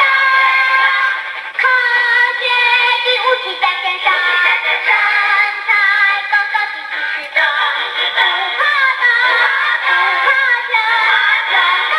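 A song with a sung vocal line over music, played continuously with almost no bass.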